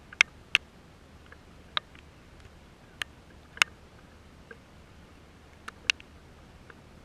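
Raindrops dripping onto a hard surface close to the microphone: about eight sharp ticks at irregular intervals over a faint steady hiss.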